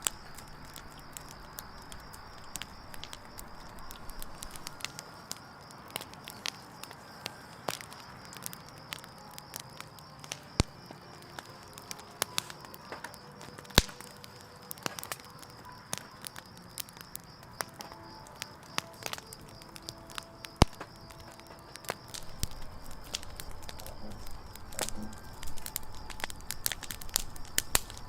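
Wood campfire crackling, with irregular small pops and a few louder sharp snaps, the loudest about eleven, fourteen and twenty-one seconds in.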